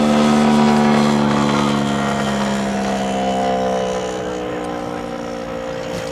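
Model aircraft propeller engine droning steadily, its pitch sinking slowly and the sound fading somewhat in the second half.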